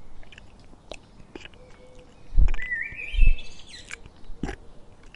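Giraffe chewing, with two dull low thuds a little under a second apart about halfway through, while small birds chirp with rising, stepping calls.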